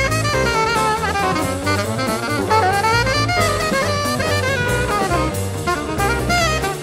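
Jazz saxophone solo over a swing band's rhythm section with drum kit. The saxophone plays fast, bending runs of notes while the drums and low accompaniment keep a steady beat.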